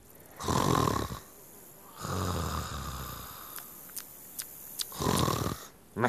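Cartoon snoring voiced for a snail asleep in its shell: a rasping breath in, a low snore out that trails off, and another breath in near the end. A few faint, very short high squeaks come in the pause between breaths.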